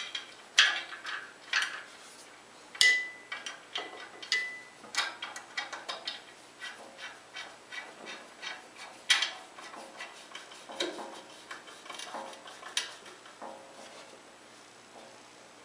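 Screwdriver and screws working against an aluminum band saw blade guard as it is screwed on: irregular clicks and metallic taps. One tap about three seconds in leaves the metal briefly ringing.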